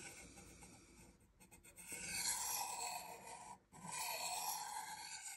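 Two long scraping strokes of a steel folding knife's edge drawn with light pressure along a diamond-and-ceramic honing rod, each stroke lasting over a second, with a short gap between them; it is honing the edge back to crispness.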